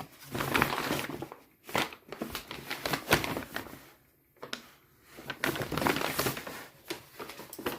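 Packaging being handled and opened, rustling and crinkling in irregular bursts, with a short pause about four seconds in.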